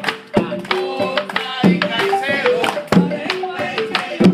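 Upbeat song with singing and a steady beat of drums and percussion.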